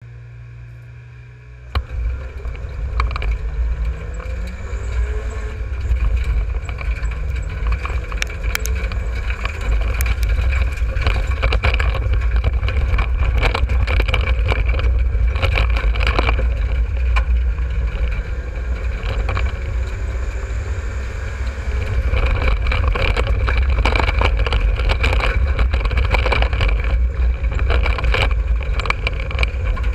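Race car engine heard from inside the car on a dirt oval, running hard with revs rising and falling, among frequent knocks and rattles. It jumps suddenly from a low steady hum to full volume about two seconds in.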